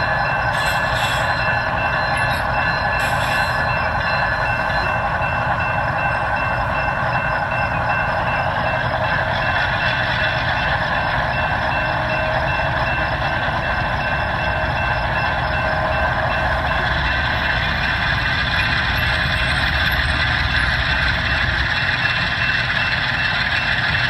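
A railroad crossing bell ringing continuously over a low, steady rumble.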